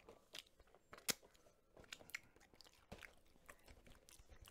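Cheez-It crackers being chewed close to the microphone: a faint scatter of irregular crisp crunches, the sharpest about a second in.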